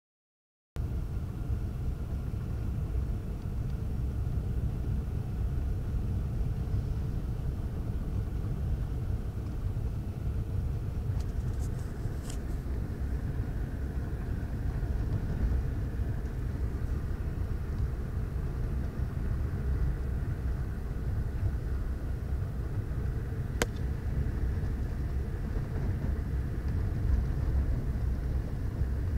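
Cabin noise of a car being driven, heard from inside: a steady low rumble of engine and road, starting just under a second in. A single sharp click comes about two-thirds of the way through.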